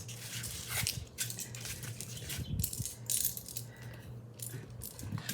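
Small metal snap-button charms clicking and clinking against each other as they are handled and taken off, a scatter of short light clicks.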